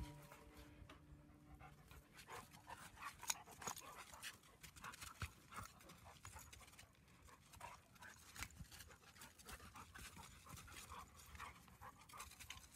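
Faint panting and scuffling of two dogs play-wrestling, with scattered soft taps of paws on dry dirt.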